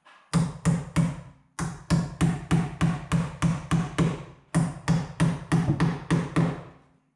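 Hammer blows driving the nails of a single-gang electrical box into a wooden wall stud, about four strikes a second in three runs, with short pauses about a second in and again about four seconds in.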